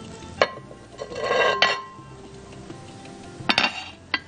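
A cutting board scraping and knocking against the rim of a glass bowl as raw veal cubes are slid off it into the bowl, with a few sharp clinks, over soft background music.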